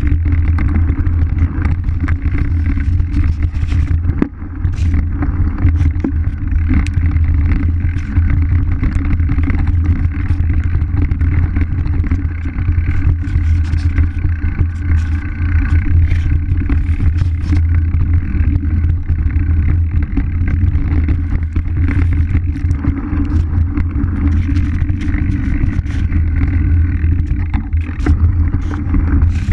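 Mountain bike ridden fast down a rough trail: continuous low rumbling wind buffeting on the action camera's microphone, with frequent rattles and clatters from the bike over bumps and wooden slats.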